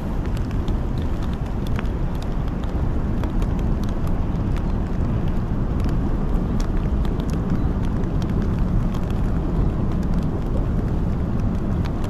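Steady low rumble of wind on the microphone, with scattered raindrops ticking on a rain jacket.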